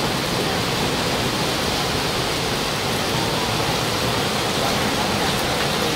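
Heavy rain pouring down in a steady, loud hiss, heard from under a canopy tent.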